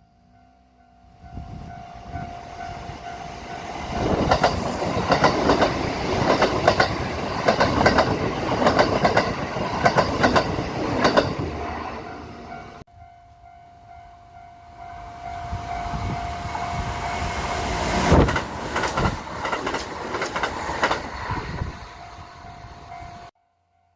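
Kintetsu Osaka Line trains passing over rail joints, two passes in a row: a rapid clickety-clack of wheels striking the joints, first about four to twelve seconds in, then again later with the loudest knocks around eighteen seconds in. A steady ringing tone from the level-crossing warning signal sounds before each train. The sound cuts off abruptly about thirteen seconds in and again just before the end.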